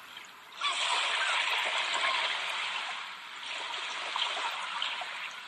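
Running water under the meditation, a steady rushing wash that comes in about half a second in, swells and eases.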